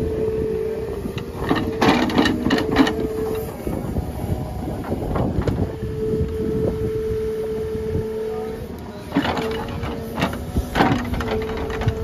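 Shinhai backhoe loader's diesel engine running under digging load, with a steady hydraulic whine that comes and goes as the arm works. The bucket scrapes and knocks through stony soil in clattering bursts, about two seconds in and again from about nine to eleven seconds in.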